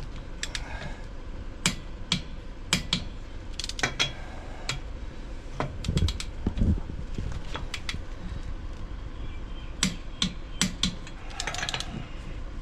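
Click-type torque wrench tightening wheel nuts on a space-saver spare: sharp metallic clicks at irregular intervals, each click the sign that a nut has reached its set torque. A few dull knocks come around the middle.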